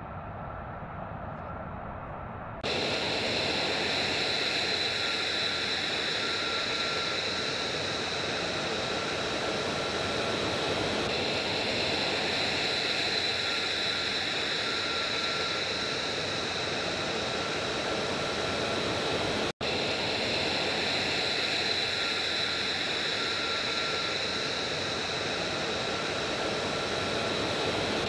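Steady rushing jet noise from F-35A fighters' Pratt & Whitney F135 turbofans on the runway, with a steady high whine running through it. A few seconds in it changes abruptly from a duller, quieter rush to a louder, fuller hiss, and it drops out for an instant about two-thirds of the way through.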